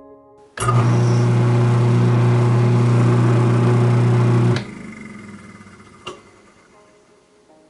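Garbage disposal motor switched on for a test run after repair: it starts suddenly, runs with a steady hum for about four seconds, then is switched off and winds down with a falling, fading sound. A single click comes as it spins down.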